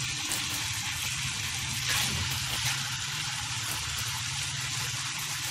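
Potato slices sizzling in hot oil in a frying pan as they are stirred with a spatula: a steady hiss, with a low hum underneath.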